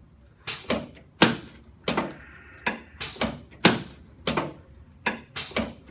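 Quick series of about a dozen sharp knocks, roughly two a second, from a chiropractic adjustment of a patient lying face down.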